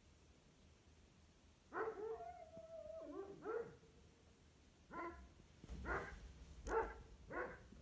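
Anatolian shepherd dog barking: one long drawn-out, howling call about two seconds in, then five short single barks, about one a second.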